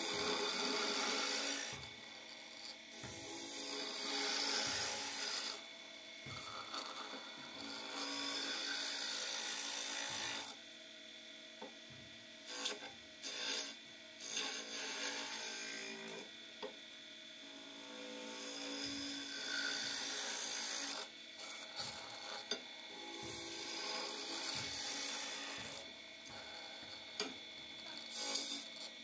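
Wood lathe spinning a wooden spindle while a hand chisel cuts it, a scraping, rasping cutting noise that comes and goes in stretches of a few seconds, over the lathe's steady hum. The cuts are freeing loose captive rings from the spindle.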